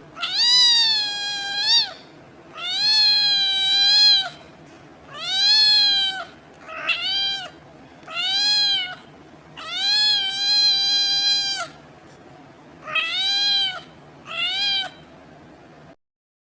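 A domestic cat meowing eight times, high-pitched calls from about half a second to nearly two seconds long, some rising and falling in pitch, with short pauses between them.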